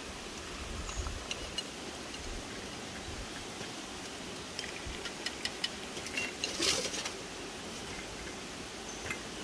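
Glass tea glasses and their saucers clinking lightly as they are shifted on a metal tray: scattered small clicks, thickest past the middle, with one short, louder scrape soon after. A steady background hiss runs underneath.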